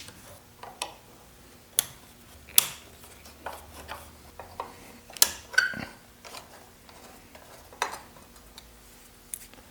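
A screwdriver and small metal screws clicking and clinking as a light switch's cover plate is unscrewed and lifted off: a series of sharp, scattered clicks.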